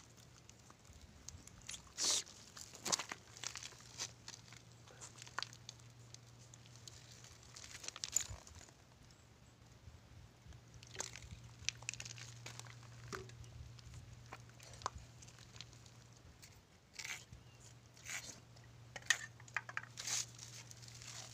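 Sea urchin being handled and cleaned by hand: irregular crunching and crackling clicks from its spiny shell, with a utensil scraping inside the shell.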